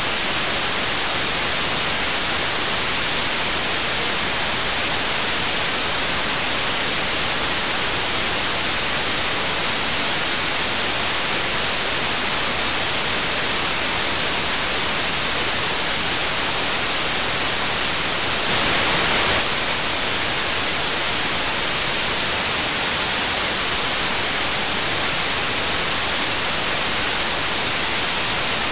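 Steady white-noise hiss from an RTL-SDR receiver tuned to an FM broadcast frequency near 98.1 MHz: the demodulated audio is only static, with no station sound coming through. The hiss swells slightly for about a second, two-thirds of the way in.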